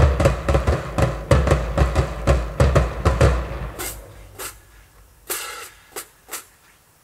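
College marching drumline (snares, tenors and bass drums) playing a fast cadence, which stops about three and a half seconds in. A few short, sharp bursts of noise follow.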